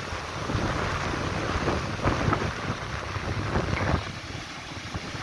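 Sea wind buffeting the microphone over the rush of surf breaking on a sandy beach; the gusts ease off about four seconds in.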